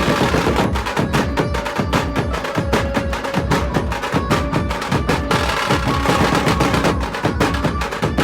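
Loud music driven by fast, dense drumming, several strokes a second, with held melody notes over the beat.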